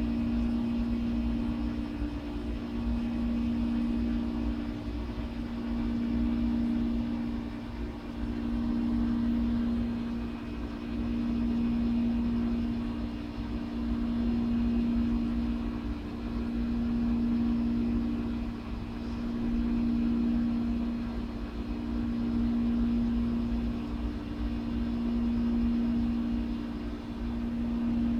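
Steady mechanical hum over a low rumble, swelling and fading about every three seconds.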